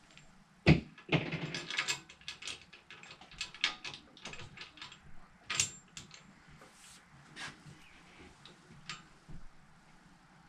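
Ratchet wrench clicking as bolts on a mini bike frame are snugged up, with a sharp metal knock just under a second in and scattered clicks and knocks after.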